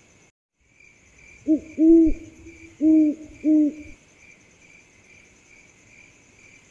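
An owl hoots four times in quick succession, low and loud, over a steady pulsing chorus of crickets.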